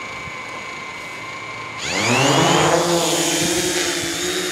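DJI Mavic Pro quadcopter's four brushless motors and propellers spinning at idle with a steady whine, then revving up sharply with a rising pitch about two seconds in as the drone lifts off, and holding a louder steady pitch as it climbs.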